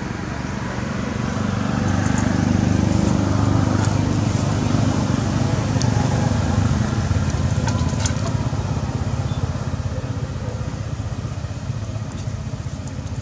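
A motor engine drones nearby. It swells about two seconds in, then eases off slowly.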